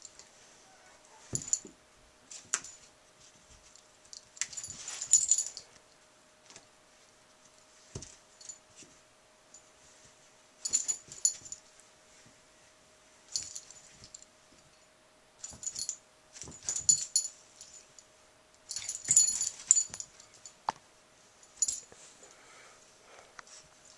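Metal fittings on a cairn terrier's harness jingling in short bursts every second or two as the dog moves and noses about, with a few light knocks.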